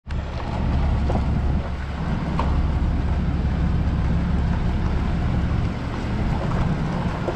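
Pickup truck carrying a camper driving along a dirt road: steady low rumble of engine and tyres with wind noise.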